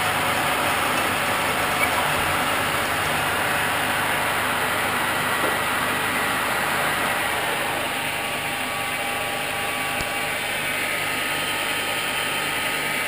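Lathe running, driving a hole-saw tube notcher as it cuts into a tube: a steady mechanical noise. It eases a little about eight seconds in, leaving a steadier hum.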